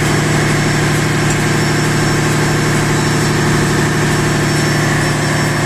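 Steady running of ship's engine-room machinery: a constant loud hum with a fast, even low throb underneath.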